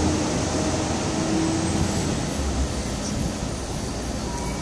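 Steady low rumble and hiss of a moving vehicle's road and engine noise.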